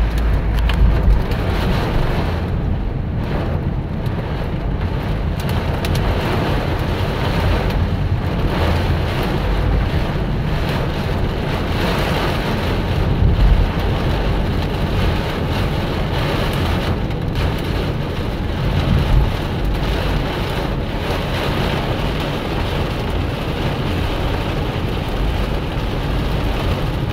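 Heavy rain and hail hitting a car's roof and windshield, heard from inside the cabin over steady road noise.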